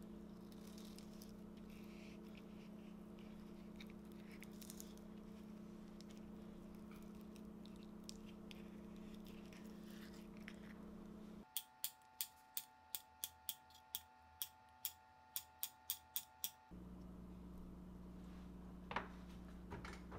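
Quiet handling of a ripe avocado: a spoon scraping out the pit and fingers peeling away the skin, with faint scrapes over a steady low hum. About halfway through, the hum drops out and a run of about fourteen sharp ticks follows, roughly three a second for about five seconds.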